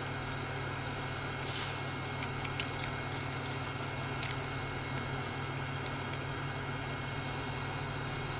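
A prying tool working between a phone's glass and its backlight panel: a short scratchy scrape about a second and a half in, then a few light clicks. Under it runs a steady fan-like hum and hiss.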